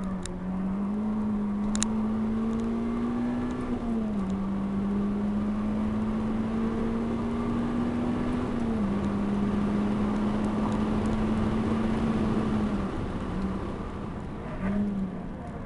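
Renault Clio RS 197's 2.0-litre four-cylinder engine heard from inside the cabin, pulling high in the revs. The pitch climbs slowly, dips with an upshift about four seconds in and again about halfway, then the steady note breaks off near the end with a short rev blip.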